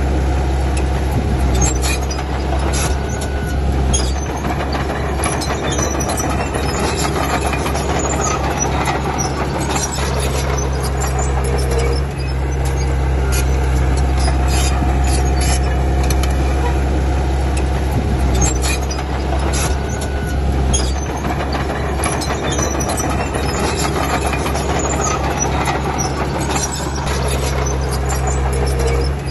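Komatsu D31P bulldozer's diesel engine running steadily, with repeated metallic clanks and brief squeaks from its steel tracks and blade.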